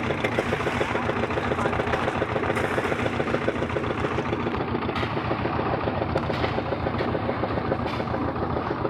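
An engine running steadily at an even speed, with a dense, regular pulsing and a few faint clicks over it.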